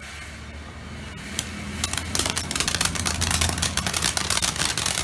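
A firework crackling: a dense, rapid run of sharp pops and crackles that starts about a second and a half in and grows louder, over a steady low hum.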